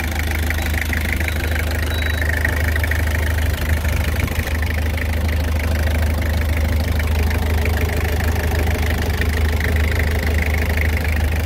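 Toyota 3L 2.8-litre four-cylinder diesel in a 1995 HiAce idling steadily just after a cold start, with a low steady hum and rapid fine ticking of diesel clatter. It runs evenly, a good sound from a healthy engine.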